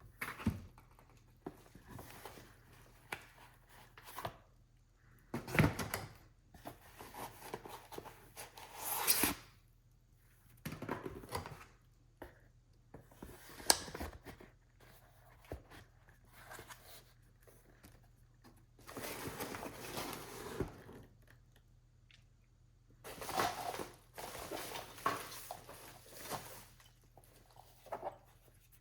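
Unboxing handling sounds: packaging rustling and tearing in separate spells, with sharp clicks and knocks now and then, the loudest about six and fourteen seconds in, and quiet gaps between.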